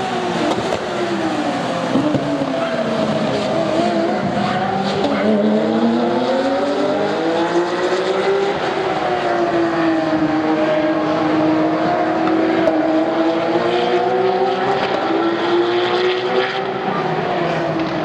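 Porsche 911 GT3 racing cars' flat-six engines running hard at racing speed, the engine note sliding down and back up several times as the cars shift and take the corners.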